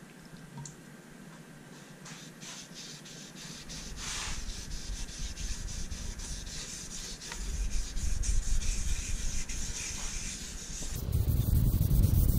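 A rag rubbing dye into the wooden top of a guitar body: repeated scrubbing strokes that grow louder after a few seconds. Near the end a louder low rumble comes in.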